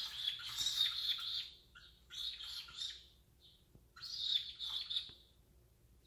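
Pet cockatiels chirping and calling in three bursts of about a second each, with a quiet last second.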